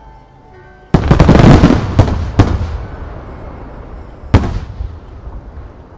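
Aerial firework shells bursting. A sudden barrage of bangs begins about a second in, with two sharp reports close together, and one more loud bang comes past the four-second mark; each trails off in a low rumble.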